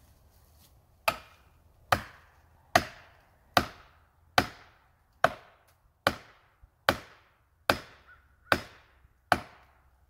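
An axe striking an orange plastic felling wedge in the tree's back cut, eleven evenly spaced blows starting about a second in, each a sharp crack with a short ringing tail. The wedge is being driven in to tip the tree over.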